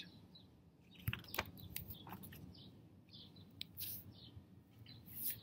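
Faint outdoor quiet with birds chirping, a few light clicks, and the rustle of a paper book page being turned.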